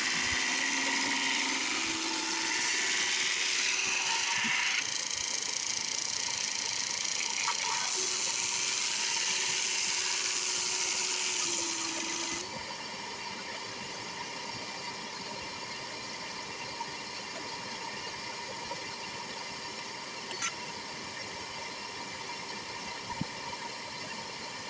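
Ryobi drum sander running with a shop vac attached, a loud hiss of sanding for the first half that cuts off suddenly about halfway through, leaving the steadier hum of the motors running on.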